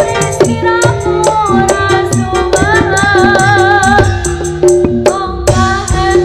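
Jaranan sentherewe music from an East Javanese gamelan ensemble. It plays a dense, fast drum rhythm under sustained pitched metal tones, with a wavering melody line with vibrato in the middle.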